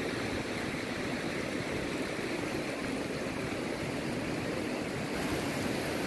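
Soča river's clear water rushing steadily over stones and boulders in shallow rapids.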